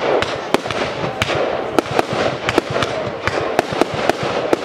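Fireworks display: about ten sharp bangs of fireworks bursting at uneven intervals, two or three a second, over continuous noise.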